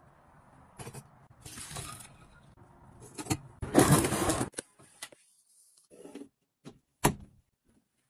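Handling noises and knocks, the loudest a scraping, tearing stretch of about a second around four seconds in as a serrated hatchet-shaped box cutter slices through the taped seam of a cardboard box. A single sharp knock follows about three seconds later.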